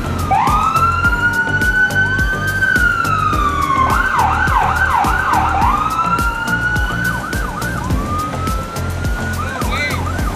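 Emergency vehicle sirens sounding together, mostly in a slow rising and falling wail, switching to a fast yelp of about four sweeps a second about four seconds in and briefly again near the end. Under them run a low engine hum and a stream of sharp clicks.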